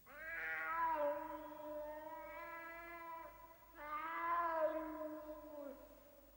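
A cat giving two long, drawn-out meows, the first lasting about three seconds and the second, starting about half a second later, about two seconds.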